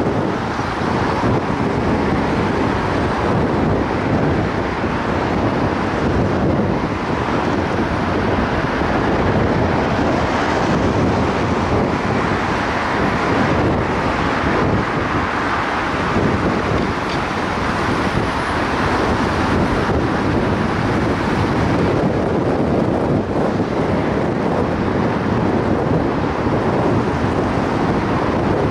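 Steady road noise from a car driving in city traffic: a continuous rumble and hiss of tyres and engines with some wind, without distinct events.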